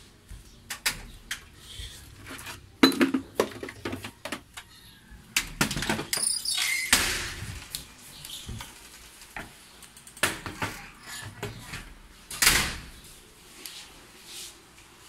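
Handling noise from a handheld phone being carried through rooms: scattered clicks and knocks, with louder rustling bursts around six to seven seconds in and again near twelve seconds.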